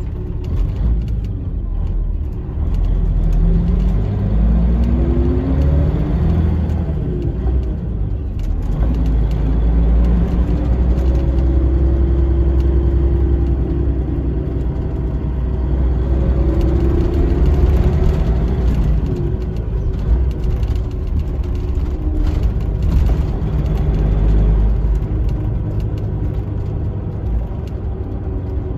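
Iveco 370S.12.30 coach's diesel engine and drivetrain heard from inside the passenger cabin while driving, with deep low rumble. The engine note rises in pitch twice as the coach accelerates, with a steady cruising stretch between.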